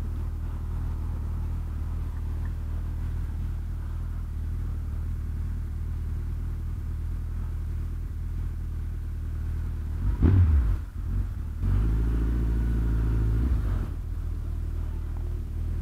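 Motorcycle engine running at low revs with a steady low hum. About ten seconds in it revs up sharply as the bike pulls away, dips briefly at a gear change, then holds a louder, higher note for about two seconds before easing back.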